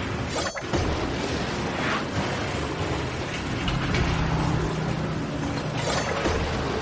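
Strong wind blowing in gusts: a loud, steady rushing with a faint low howl in it.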